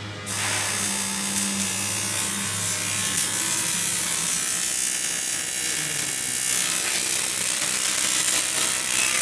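Electric arc welding on a sheet-metal tank: the arc strikes about a third of a second in and then runs as a steady, loud crackling hiss, over a low electrical hum from the welding machine.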